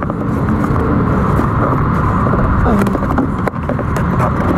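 Plastic kick panel trim pried up and handled, giving a few sharp clicks and snaps, over a steady low rumble.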